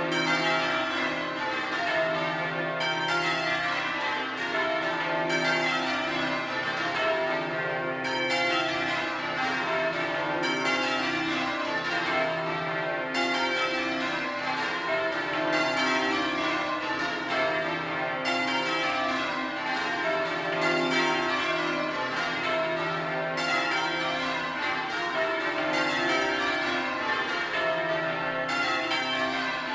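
Change ringing on the Bow Bells, a ring of twelve church bells cast by Mears and Stainbank in 1956 with a tenor in C: a continuous stream of bell strikes following one another in rapid succession, each row running into the next.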